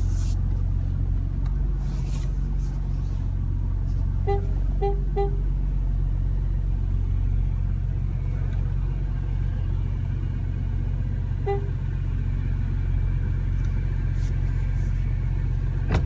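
Porsche Macan Turbo's twin-turbo V6 running at low speed, heard inside the cabin as a steady low rumble. Park Assist warning beeps sound over it: three short beeps about four seconds in and a single one near twelve seconds.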